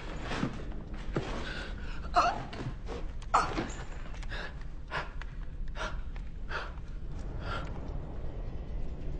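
A man gasping and panting heavily, about one ragged breath a second, over a steady low hum.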